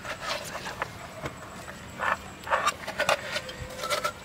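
Kitchen knife cutting and scraping ripe watermelon flesh out of the rind, a series of short, irregular wet crunches and scrapes.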